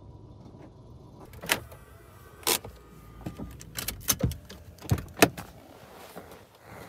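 Lexus SUV's driver door and cabin being handled, a string of sharp clunks and knocks as someone sits in the driver's seat and opens the door to climb out. The loudest knock comes about five seconds in.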